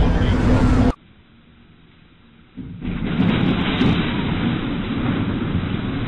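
Floodwater pouring and surging into a building, a loud steady rushing sound that starts about two and a half seconds in after a short quiet stretch. Before that, a different noisy recording cuts off abruptly about a second in.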